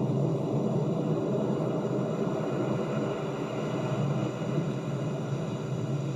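Ocean waves washing onto the shore: a steady, low rushing of surf with gentle swells.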